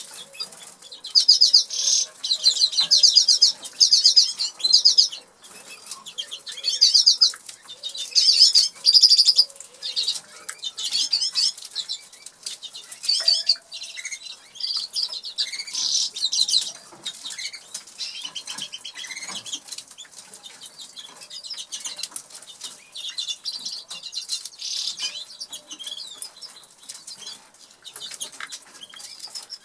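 Norwich canary singing: loud, high bursts of fast repeated trills for the first ten seconds or so, then softer, more varied twittering and chirps.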